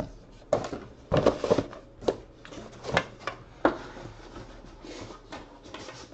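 Trading cards and plastic sleeves or holders being handled at a table: a run of sharp taps and clicks as they are set down, with a quick cluster about a second in and single knocks after it.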